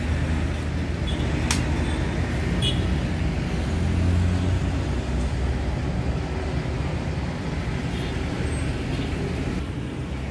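Steady low rumble of road traffic, with a single sharp knock of a cleaver on a wooden chopping block about a second and a half in.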